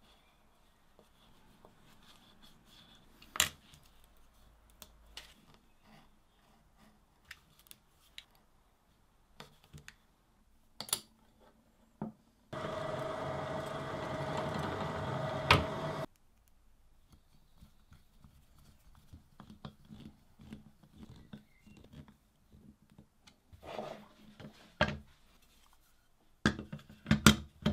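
A drill press runs for about three and a half seconds with a steady whine, drilling small holes into the edge of a wooden box. Around it are faint cutting and scraping sounds as felt is trimmed with a knife, and several sharp knocks and clicks near the end as a metal piece is handled against the wooden box.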